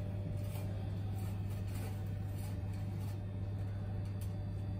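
A steady low hum with no change in pitch or level, and a few faint light ticks now and then.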